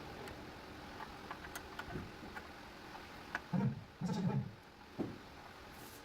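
Hand work on a vehicle during a repair: scattered light clicks and ticks of tools and metal parts, with a few dull thumps about three and a half to five seconds in.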